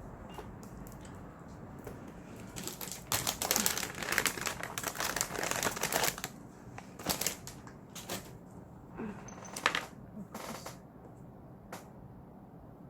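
A quick clatter of small hard items being handled and knocked together for a few seconds, then a handful of single clicks: nail products and tools being picked up and set down on the table.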